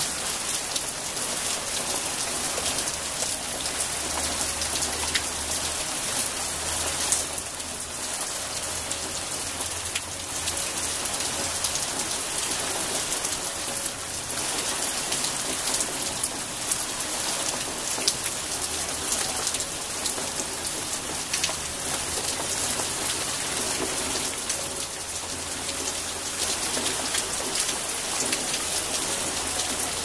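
Steady rain falling on leafy plants, a constant hiss dotted with many close individual drops ticking.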